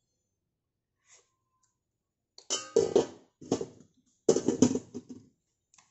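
Stainless-steel pan lid clanking and rattling on the rim of a stainless pan as it is set down, in three ringing bursts over the second half.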